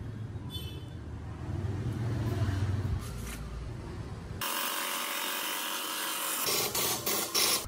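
Woodworking tools on wood: a low hum for about the first four seconds, then a steady hiss that starts and cuts off abruptly, and rasping strokes near the end.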